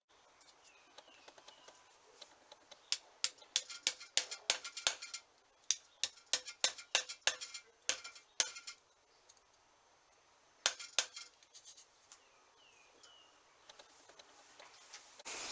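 A small hammer tapping lightly and irregularly on the metal motor housing of a bench grinder, a quick run of sharp metallic taps, then two more a little later.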